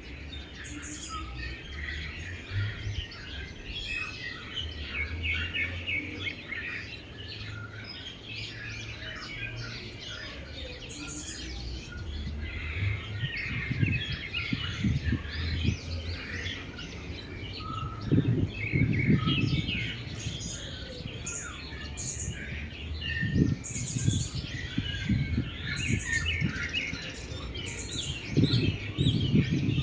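Many small birds chirping and twittering together in a dense, continuous chorus. Low rumbles come in now and then through the second half.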